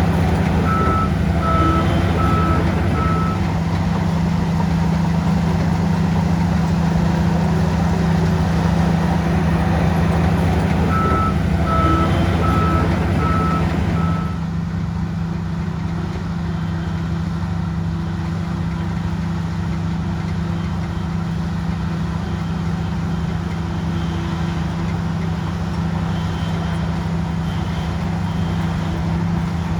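Heavy diesel engine of a bulldozer running steadily, with a reversing alarm beeping about twice a second in two runs of roughly five beeps, one near the start and one around the middle. The engine sound drops in level and loses its higher tones about halfway through.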